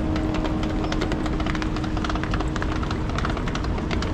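Road traffic rumbling steadily, with a constant engine hum, mixed with footsteps and scattered clicks of people walking.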